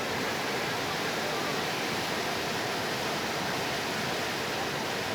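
Floodwater rushing steadily in a gully after heavy rain, a dense, unbroken water noise that starts suddenly at the very beginning.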